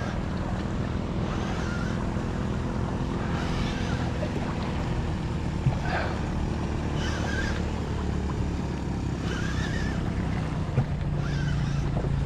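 A boat's motor humming steadily at a low pitch, with wind and water noise around it.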